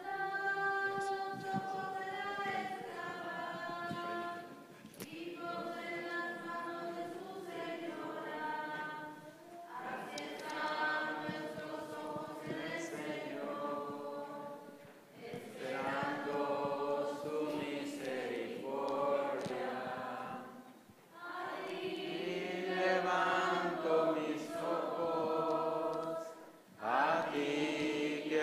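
Congregation singing a Spanish hymn in phrases of about five seconds, with short breaks for breath between them.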